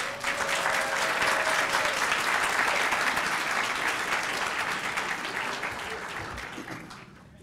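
Audience applauding, starting at once and dying away over the last couple of seconds.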